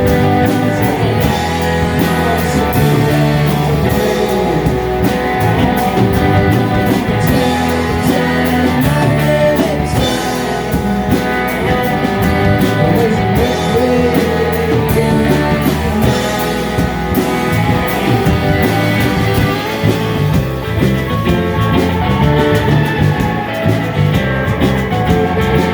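Live rock band playing an instrumental passage between verses, with guitar prominent.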